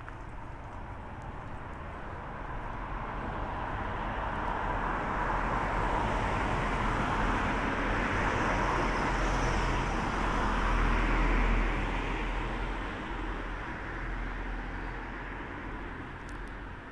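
A car passing along the street, its engine and tyre noise swelling slowly, loudest about eleven seconds in, then fading away.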